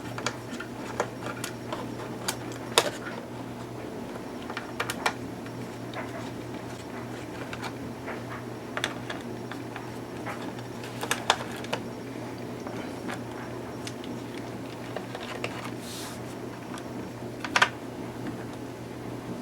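Scattered small clicks and taps of a screwdriver working the bottom-cover screws of a Dell Precision laptop, with a few louder knocks, over a steady low hum.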